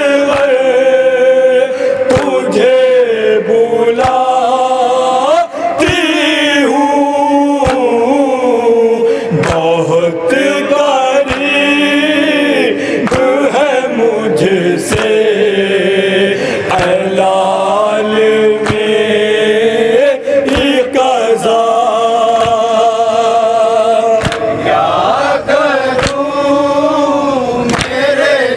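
A group of men chanting a noha, an Urdu lament, in unison. Sharp slaps of hands beating on chests (matam) keep time every second or two.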